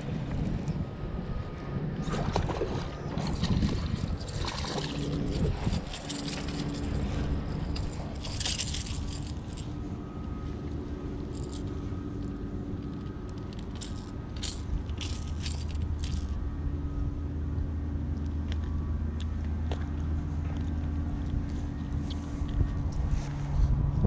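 Close handling noise as an angler lands and holds a smallmouth bass: rustling and scraping with sharp knocks through the first half, then a quick run of sharp clicks, over a steady low hum.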